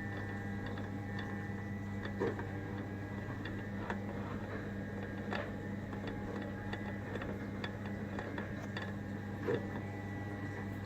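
Milling machine spindle bearings turned by hand, giving irregular light clicks and ticks, with a slightly louder knock about two seconds in and another near the end, over a steady low hum. The owner suspects the bearings are worn, feeling flat spots as the spindle turns.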